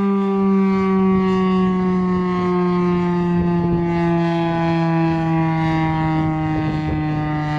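Federal Signal STH-10 outdoor warning siren sounding during a test: one loud, sustained wailing tone whose pitch slowly falls.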